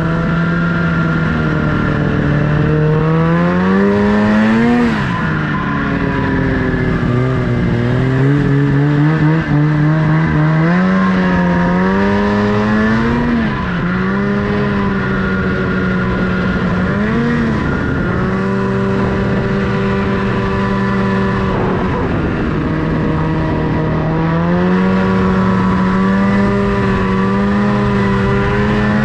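Snowmobile engine running while riding, its pitch rising and falling again and again as the throttle is opened and eased off.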